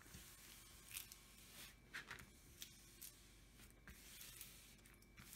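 Faint swishes of hands rubbing across the clear plastic film covering a diamond painting canvas, smoothing it flat, a few short strokes about a second apart.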